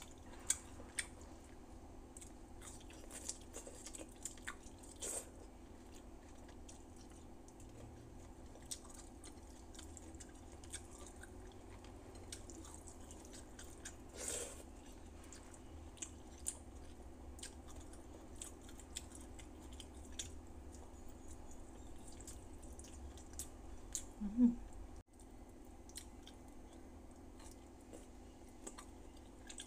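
A person chewing mouthfuls of rice and soft sinigang vegetables and pork eaten by hand, with many small mouth clicks throughout. A brief vocal sound comes about 24 seconds in.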